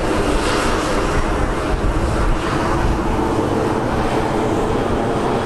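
Two Bell Boeing MV-22B Osprey tiltrotors flying overhead: a steady, loud drone of their proprotors and turboshaft engines.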